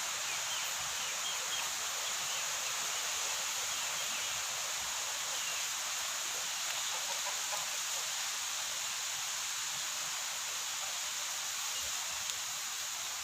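Steady rural outdoor ambience: an even hiss with a constant high-pitched insect drone running through it.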